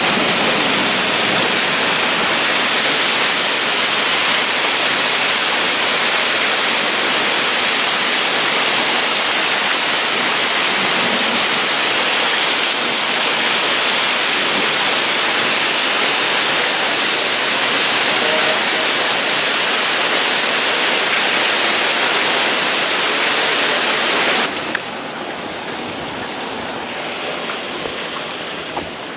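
Torrential rain pouring down in a loud, steady, dense rush during a flash-flood cloudburst. About 24 seconds in it cuts off suddenly to a much quieter outdoor background.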